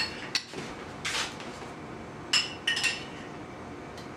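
A metal spoon clinking against a ceramic bowl and a stainless steel pot while chicken fat is scooped into the pot: a few sharp clicks, a brief swish, then several short ringing clinks in the middle of the stretch.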